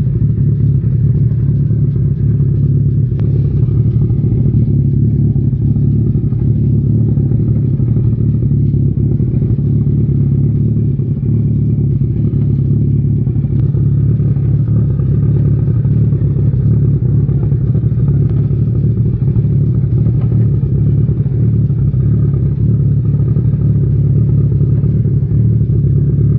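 Motorcycle engine running steadily at idle in gear, turning the rear wheel and drive chain with the bike up on its stand.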